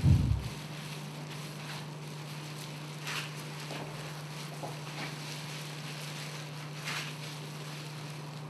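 Steady low electrical hum, with a short low thump at the start. Faint soft rustles, about three of them, come from gloved hands working hair colour through wet, product-coated hair.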